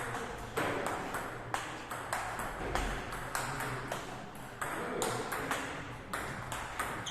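Table tennis balls clicking off bats and the table during rallies: sharp, irregular pings about two or three a second, with some echo after each.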